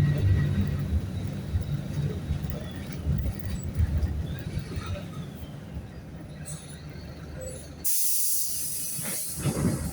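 Diesel engine of a Mercedes-Benz OF-1519 bus running low and slowly fading, then about eight seconds in a sudden, loud hiss of compressed air from the air brakes that lasts a little over a second.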